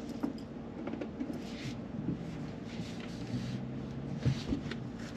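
Quiet car cabin with the engine stalled: a faint steady hum, with light clicks and short rustles now and then.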